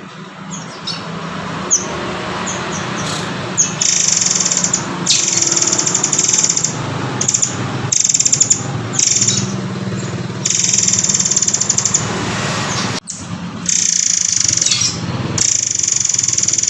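Murai air (murai kopi) song: a few short chirps, then long rapid high-pitched trills repeated about eight times, each lasting one to two seconds, over a steady low hum.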